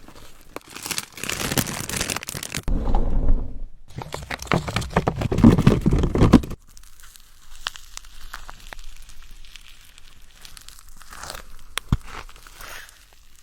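Plastic packaging crinkling and tearing in two loud stretches, then quieter rustling with scattered ticks and one sharp click near the end.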